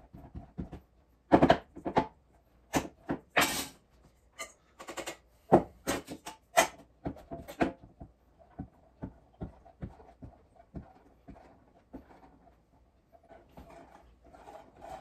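A block of mozzarella scraped up and down a hand cheese grater: quick repeated rasping strokes, about two or three a second, louder for the first eight seconds or so and fainter after.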